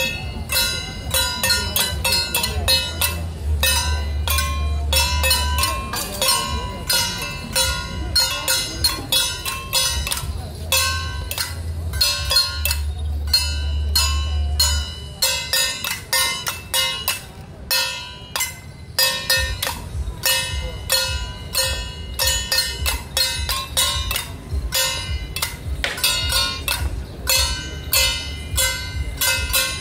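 Taiwanese temple-procession percussion: gongs and cymbals clanging in a fast, steady beat with a metallic ring after each strike. A low hum comes and goes underneath.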